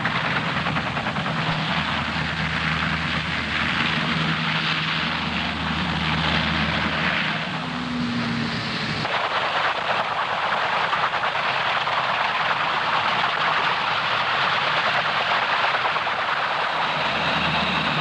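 Fairey Rotodyne running on the ground with its rotor turning: loud steady jet noise from the tip-jet rotor and engines, with a low drone under it that drops away about nine seconds in.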